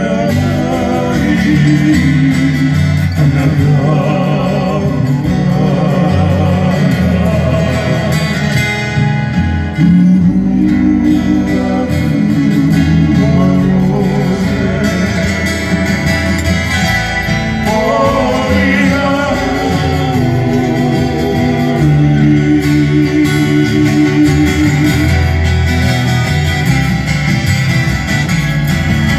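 Live Hawaiian music by a trio: men singing to strummed acoustic guitars with a bass line.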